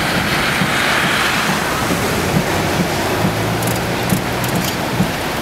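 Strong storm wind near a tornado rushing past and gusting against the microphone, loudest in the first second or so. A low hum comes in about three seconds in.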